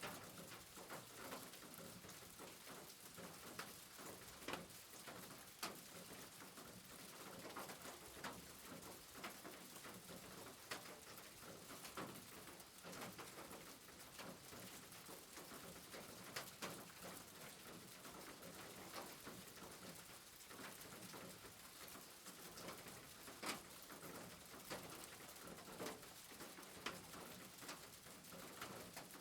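Rain falling: a faint, steady hiss of rain with scattered drips and ticks of drops landing.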